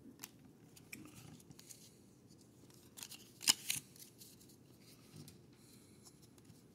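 Baseball trading cards being handled and flipped through in the hands: faint slides and rustles of card stock, with two sharp snapping clicks about three and a half seconds in.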